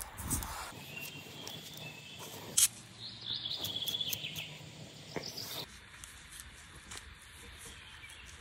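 Outdoor ambience with small birds calling, including a rapid high trill a few seconds in, and a single sharp click just before the trill.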